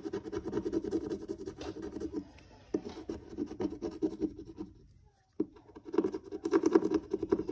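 Rapid scratching on paper or card, in three runs with short pauses between them.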